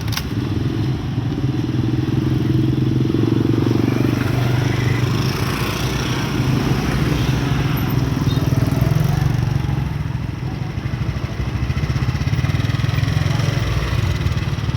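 Heavy diesel engine of earthmoving machinery running steadily under work, its engine note shifting about five seconds in. A sharp click right at the start.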